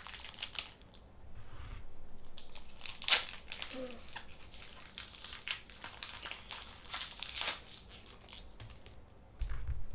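Foil wrapper of a Pokémon trading-card booster pack being torn open and crinkled: a run of crackling rustles with a sharp crackle about three seconds in, thinning out after about seven and a half seconds.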